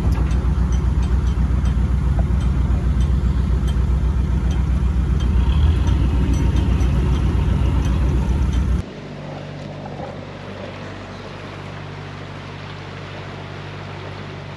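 Narrowboat diesel engine running steadily, loud and close, with a fast, even beat. About nine seconds in it cuts abruptly to a quieter, steady engine hum.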